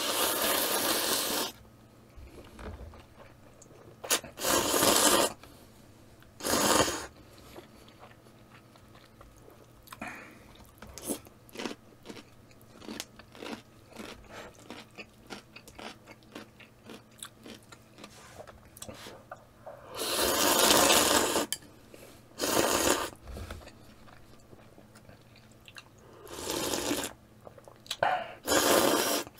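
Instant ramen noodles slurped up with chopsticks in about seven loud, noisy slurps, with chewing and small wet mouth clicks between them.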